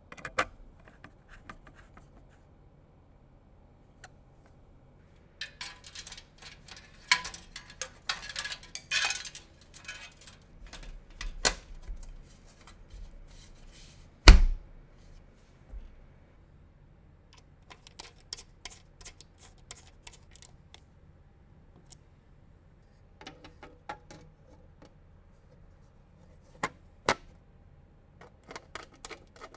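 Computer case and PC parts being handled during assembly: irregular clicks, taps and light rattles of plastic and metal, busiest in the first half, with one loud knock about fourteen seconds in.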